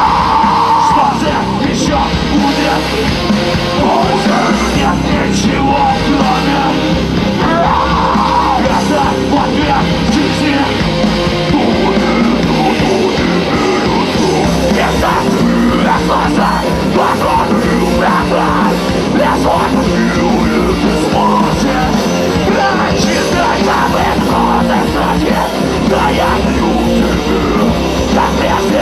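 Live heavy rock band playing loud distorted guitars and drums, with a singer yelling over the music.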